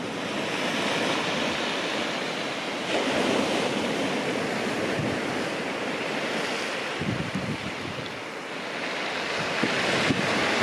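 Surf breaking and washing up a shingle beach, swelling a few seconds in and again near the end, with wind buffeting the microphone.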